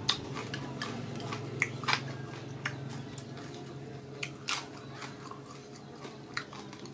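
Close-up mouth sounds of chewing crispy fried pork: a scattered run of sharp crunches and clicks, over a steady low hum.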